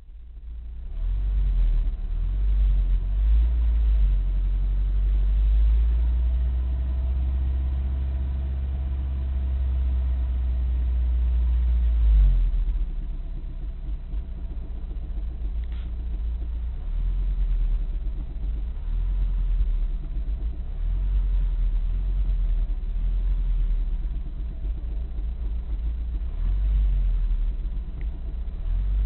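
Opel C20NE 2.0-litre four-cylinder engine running with a knock, heard from inside the car's cabin as a low rumble that swells about twelve seconds in and then eases.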